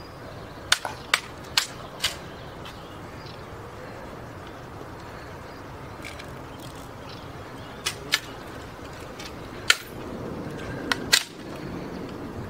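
Sharp metallic clicks and clacks of an M14 rifle being handled and inspected. About four come in the first two seconds and a few more near the end, over a steady outdoor background.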